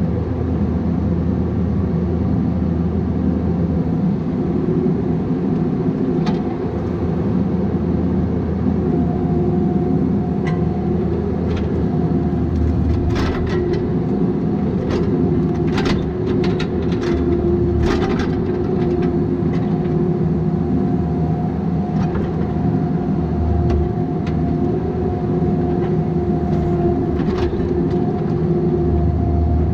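Bobcat 337G mini excavator's diesel engine running steadily, with scattered sharp knocks and clanks from the machine working, several in quick succession in the middle.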